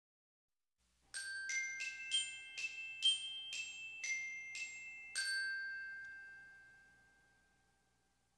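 Short outro jingle of bright, bell-like struck notes: about ten notes in a quick, even run, the last one held and ringing out until it fades away.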